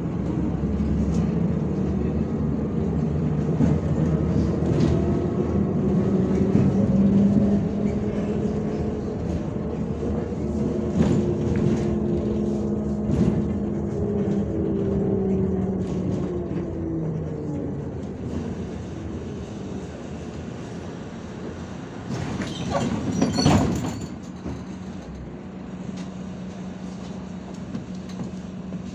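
Inside a MAZ-105 articulated diesel city bus: the engine and drivetrain run under way, their pitch rising and falling, then the bus slows. Near the end a short loud burst of hiss and clatter comes as the doors open at a stop, after which the engine idles steadily.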